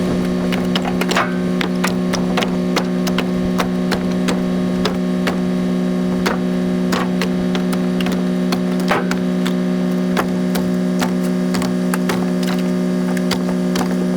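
Steady mechanical hum of a running machine, with irregular knocks and clatters of split firewood pieces being loaded.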